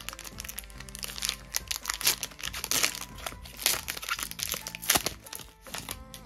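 Foil wrapper of a Pokémon booster pack crinkling in quick, sharp crackles as it is opened and pulled off the cards, over steady background music.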